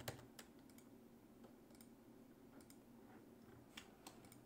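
Near silence, with a few faint, scattered clicks of a computer keyboard and mouse over a low room hum.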